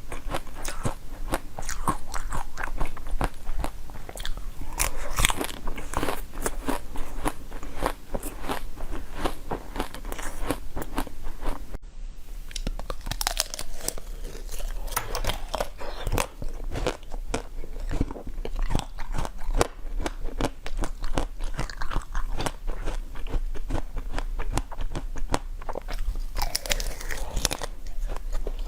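A person biting into and chewing crunchy food: a dense run of sharp, crisp crunches, with a momentary break about twelve seconds in.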